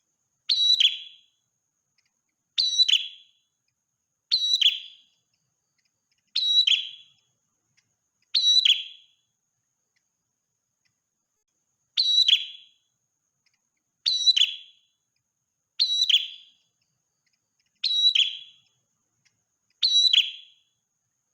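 Prenjak merah, a small Indonesian prinia-type songbird, giving the same short, high, whistled call ten times, about once every two seconds with one longer pause partway through. The repeats look alike, as in a looped lure recording.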